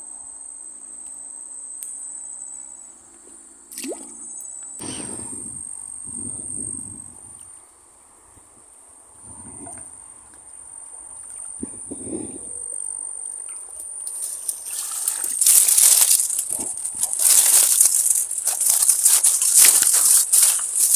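Insects buzzing in a steady high-pitched drone, with a few soft knocks from handling the fishing tackle. About fourteen seconds in, loud rustling of tall grass and reeds takes over as someone pushes through the vegetation.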